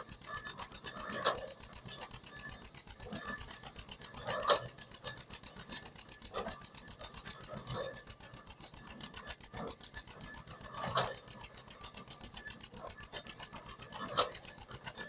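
Antique stationary baler, belt-driven from a steam engine, running while it bales straw. A fast, even mechanical clatter goes on throughout, with a heavier knock every few seconds.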